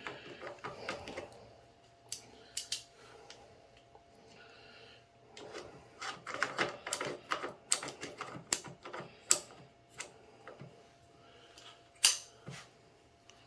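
Irregular metal clicks and rattles as a quick-release riser mount is worked onto an AR-15's rail, with one louder click near the end.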